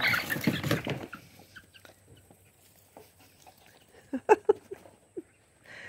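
A brief rushing hiss of a water-blaster squirt gun being fired, lasting about a second. About four seconds in, a few short clucks come from chickens.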